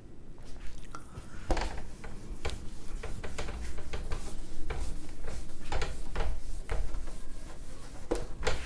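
A whiteboard being wiped clean with an eraser: a run of uneven rubbing strokes, about one or two a second, starting a second and a half in.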